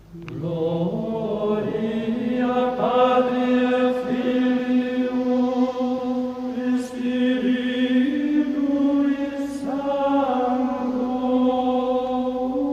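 Slow, chant-like singing: long held sung notes that step to a new pitch every few seconds.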